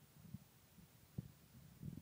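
Near silence with faint, irregular low thumps and one sharp click about a second in.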